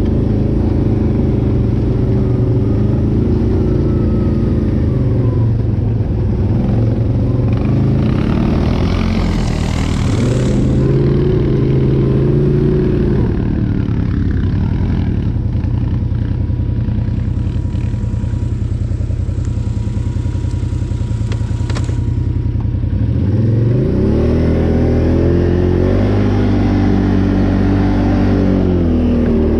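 Can-Am Renegade 800 ATV's V-twin engine running under load on a trail, its pitch rising and falling with the throttle, with a sharp climb in revs about three quarters of the way through.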